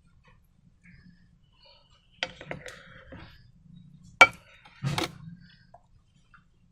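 A few sharp clicks and taps of small hard objects, the loudest a single crisp click about four seconds in, followed by a short clattering knock.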